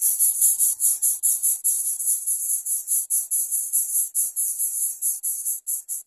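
Insects calling: a loud, high-pitched buzz pulsing evenly at about six to seven pulses a second.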